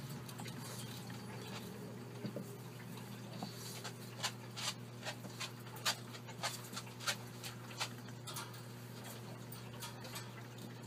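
Baby hamsters scrambling in a plastic hamster wheel: their claws and feet make irregular light clicks and taps on the plastic, thickest in the middle, over a steady low hum.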